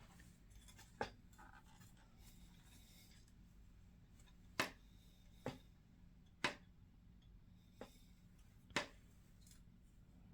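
Scale model airliner and its parts being handled: about six separate sharp clicks and taps spread through the stretch, over a faint low hum.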